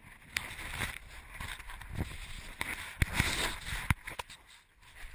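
Rustling and scraping as a feral cat's fur rubs against the collar-mounted GoPro housing while the cat moves, with sharp knocks every second or so.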